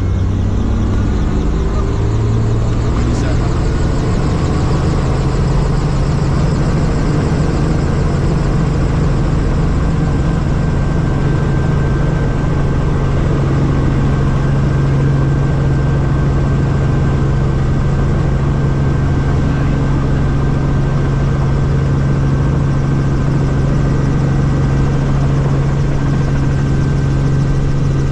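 Small helicopter's engine and rotor running on the ground, heard from inside the cabin. The pitch rises over the first two seconds as the rotor spins up, then holds steady, with a thin steady whine above the drone.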